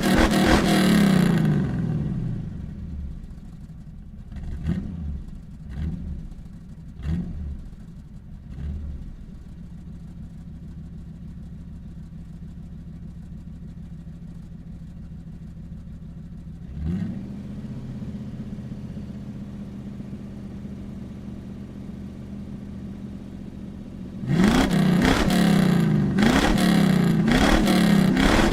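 Ford Mustang engine revving hard, then dropping to a steady idle within about two seconds. A few short throttle blips follow, and it then idles evenly. About 24 s in it revs hard again, rising and falling repeatedly through to the end.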